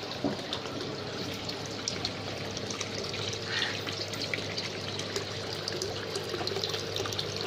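Water pouring from a pipe into a goldfish tank, splashing and trickling steadily on the surface, with a steady low hum underneath.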